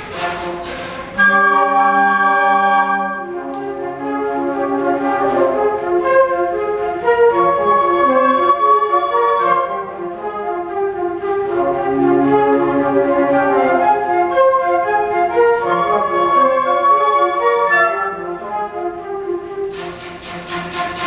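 A flute choir playing together. About a second in, a loud chord enters suddenly and is held, then moves into shifting chords and running lines over low sustained notes. Near the end the music changes to rhythmic, breathy percussive pulses.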